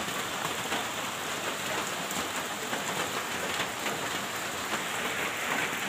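Steady rain falling on wet ground, puddles and leaves: a constant even hiss with a few faint ticks of single drops.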